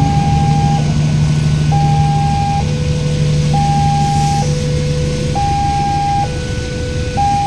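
Railway level-crossing warning siren sounding a high-low two-tone alternation, each tone held just under a second, over a steady low drone that stops about six seconds in.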